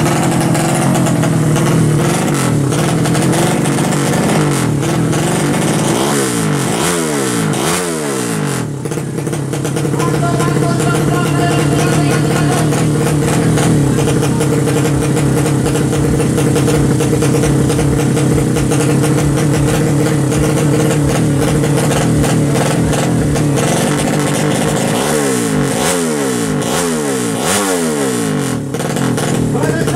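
A 200 cc SOHC four-stroke sleep-engine drag bike, Yamaha Jupiter-based, running steadily at the start line. The revs sweep up and down in a few quick blips about six seconds in and again near the end.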